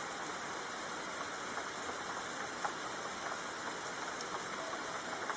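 Steady background rain ambience: an even hiss with faint scattered drop ticks.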